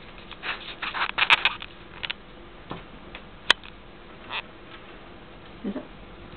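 Light scattered clicks and rustles from a guinea pig being hand-fed a piece of mandarin in its cage, with one sharp click about three and a half seconds in.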